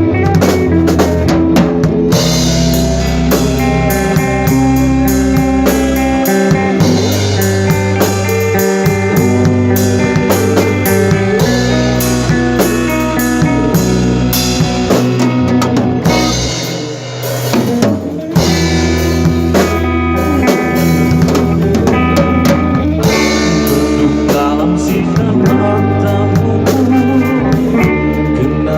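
A band playing an instrumental passage of a Malay rock song on drum kit and guitar, with no singing. The music thins out briefly about two-thirds of the way through, then the full band comes back in.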